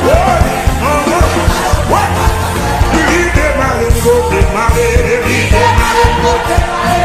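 Gospel worship music: singing over a band with a steady bass beat.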